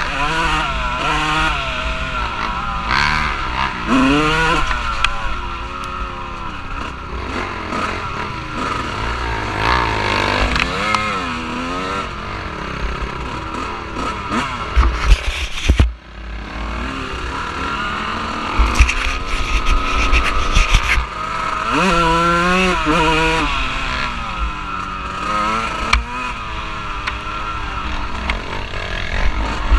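Off-road vehicle engine revving up and down repeatedly as it is ridden, over a steady low rumble, with a sudden brief dropout about halfway through.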